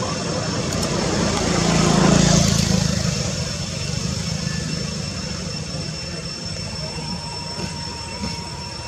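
An engine passing by, its low hum swelling to a peak about two seconds in and then slowly fading.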